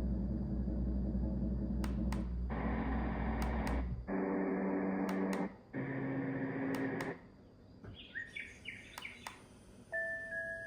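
Bedside white noise sound machine stepping through its built-in sleep sounds: several steady hissing noise tracks, each cut off after a second or two, then a quieter birdsong track with chirps. A chiming melody begins near the end.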